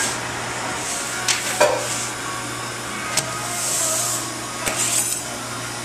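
Steady hum of the kitchen's ventilation, with a few sharp clicks and scrapes as the metal pizza peel and the pizza are handled, and a brief rustle of paper.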